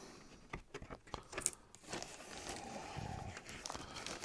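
Faint rustling and crinkling of vinyl record sleeves and packaging being handled, with scattered small clicks and taps.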